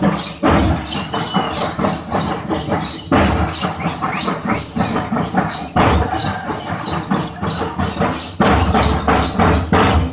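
Gussadi dance music: a jingling, rattle-like rhythm about three times a second, with a heavier low beat about every two and a half seconds.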